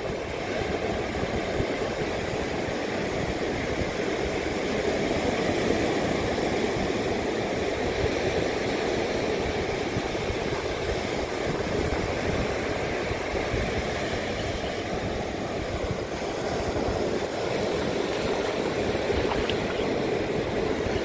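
Steady rushing of surf breaking and washing up a sandy beach, mixed with gusty wind on the microphone.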